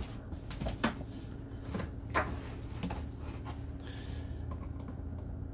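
Low steady hum of room tone, broken by a few light clicks and knocks, the clearest within the first two seconds or so.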